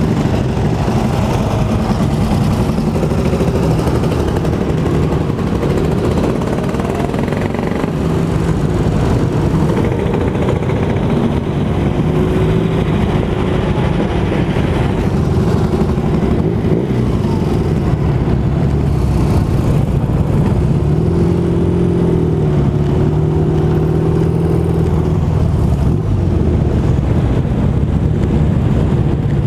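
Many motorcycle engines running together in a slow group ride, heard from the back of a moving Vespa scooter. About two-thirds of the way through, one engine rises in pitch and holds there for a few seconds.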